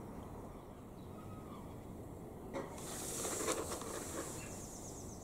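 Faint outdoor background noise, with a short click about two and a half seconds in and then a swell of hiss lasting about a second and a half.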